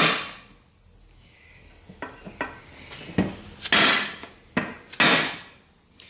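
Dead-blow hammer striking a billet aluminium adapter plate in several irregular, separate blows, the loudest at the start, a little under four seconds in and about five seconds in. The blows seat the plate down over the bell housing's dowel pins.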